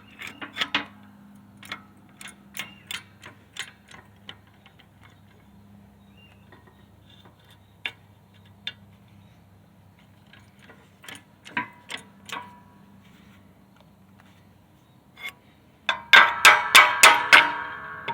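Metal tools and parts being handled: scattered light ticks and taps, then from about two seconds before the end a quick run of loud, ringing metallic clinks.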